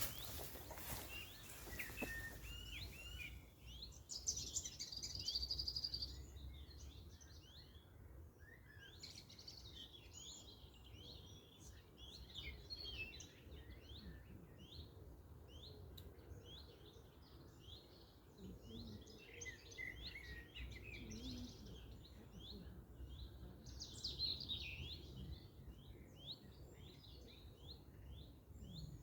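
Several small songbirds chirping and singing, a dense run of short, quick calls and trills, over a low steady background rumble.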